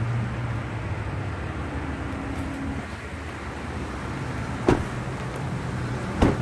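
Ford Expedition's 5.4 L Triton V8 idling with a steady low hum. Two sharp clicks come through, one about four and a half seconds in and another near the end.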